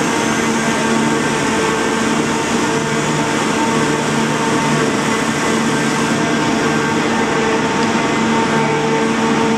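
The Grand Éléphant's diesel engine and hydraulic drive running as the mechanical elephant walks: a constant machine drone with a steady whine.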